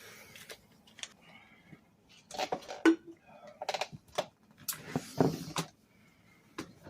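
Metal tools clinking and clanking against a motorcycle wheel during an inner-tube change: a string of sharp knocks with short ringing, the loudest about three seconds in and a cluster just after five seconds, with heavy breathing between.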